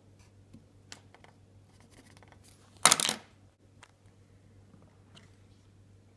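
Quiet handling of small plastic toys: a few faint clicks, and about three seconds in a brief, sharp clatter, the loudest sound.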